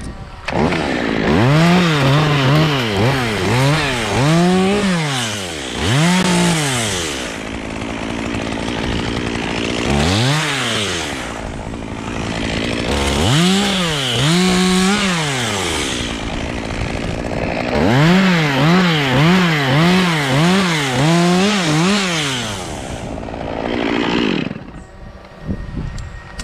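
Chainsaw cutting cypress limbs, its engine revving up and down again and again in quick throttle blips, in several bursts with steadier stretches between. It drops away near the end.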